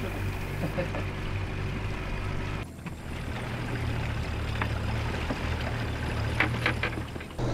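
Boat's 50 hp Yamaha outboard motor running steadily, a low drone. The sound shifts abruptly about two and a half seconds in, and a few light clicks come near the end.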